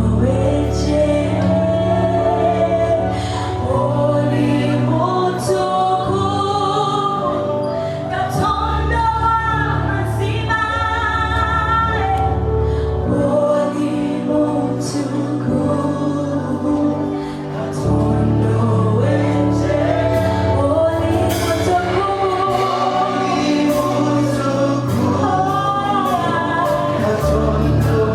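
Gospel choir singing with band accompaniment: a bass line and drums under the voices.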